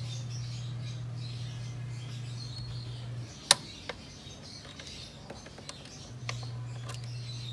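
Small birds chirping over a steady low hum. Just as the hum cuts out, a little under halfway through, there is a sharp metallic click of the pliers, then a softer one. The hum returns near the end.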